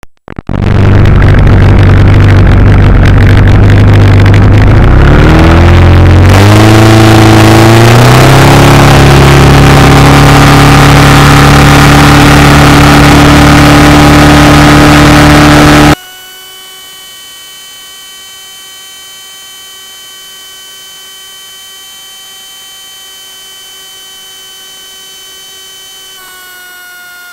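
Outboard motor on a small aluminium boat running very loud with heavy wind noise on the microphone, revving up in steps as the boat gets on plane, then holding a steady high speed. About two-thirds of the way through the sound cuts off abruptly to a much quieter steady whine of several held tones.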